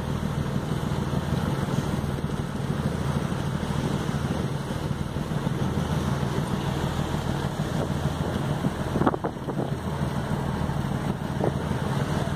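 A ship's engine drones steadily under way, with wind blowing across the microphone and the rush of the sea alongside. Two short knocks cut through, the louder about nine seconds in.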